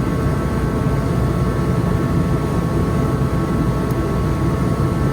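A steady low mechanical rumble with faint, even whining tones above it, unchanging throughout.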